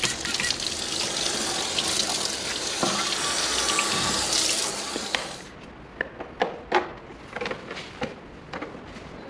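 Tap water running into a sink and splashing over a clear plastic motorcycle windscreen being rinsed by hand. About five seconds in the water cuts off, and a handful of light clicks and knocks of plastic fairing parts being handled follow.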